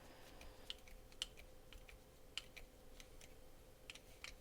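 Faint, scattered small clicks, about half a dozen over a few seconds, of a Torx screwdriver being fitted to and worked on a folding knife's screws. A faint steady hum runs underneath.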